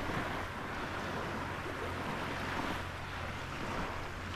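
Steady wind noise on the microphone over small waves washing in shallow sea water, with a low rumble.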